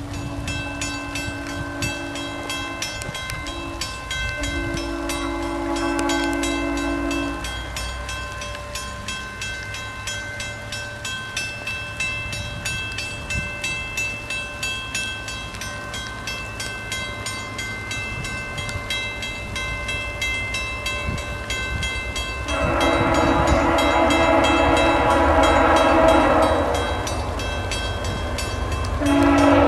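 An approaching VIA Rail passenger train's horn sounding over a steadily ringing level-crossing bell: a long blast, a short one and another long one in the first seven seconds, then a louder long blast about 23 seconds in and another starting near the end.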